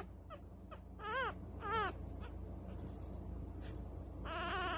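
Newborn puppies crying: two short squeals that rise and fall in pitch about a second in, then a longer wavering cry near the end.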